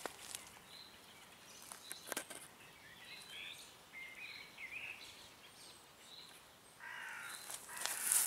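Birds calling in the woods: a few short chirps in the middle, then a longer, harsher call with several notes near the end. There is one brief rustle of leaves about two seconds in.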